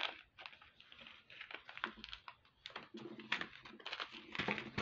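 A resealable plastic bag of Matubo SuperDuo glass beads being opened and handled: a string of small, irregular clicks and crinkles as the bag's plastic and the glass beads knock together.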